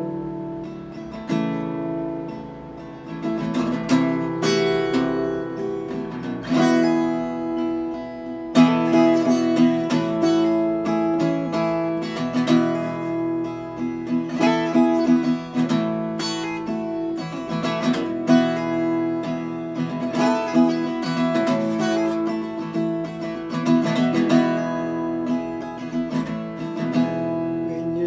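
Acoustic guitar played solo, strumming chords in a slow, even rhythm. The playing is softer for the first several seconds and grows louder about eight seconds in.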